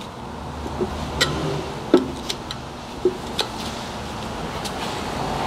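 A few light clicks and taps of a flat screwdriver against a brake rotor as a rubber access plug is pushed into the rotor's drum hole, over a steady low hum.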